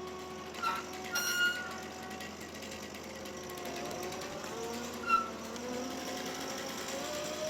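Machinery running with a wavering whine that drifts up and down in pitch. Short high squeaks and clicks come about a second in and again about five seconds in.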